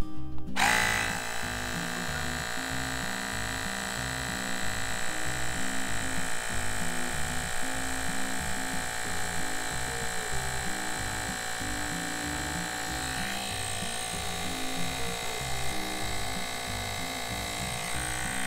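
Small cordless rechargeable air compressor running steadily with a high motor whine, pumping air through a ball needle in its basketball mode. It starts about half a second in, and its tone shifts slightly about thirteen seconds in.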